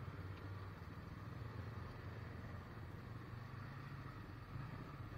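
ATV engine running low and steady, its pitch lifting a little near the end.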